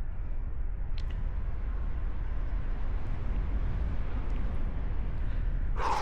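Steady wind rushing over the microphone of a paraglider in flight, heaviest in the low rumble. A short burst of hiss comes near the end.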